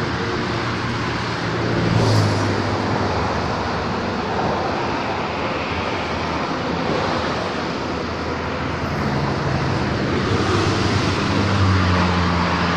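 Steady motor-vehicle rumble and road noise, with a low engine hum that swells about two seconds in and again near the end.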